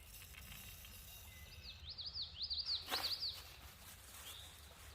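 A small songbird sings a quick run of high chirps starting about a second and a half in, over a steady low outdoor rumble. A single sharp click comes about three seconds in.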